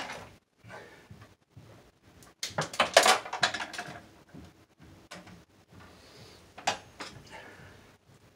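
Electrical wire being handled and worked into a breaker panel: rustling, scraping and clicking, with the loudest cluster of scrapes and knocks about three seconds in and a single sharp click near seven seconds.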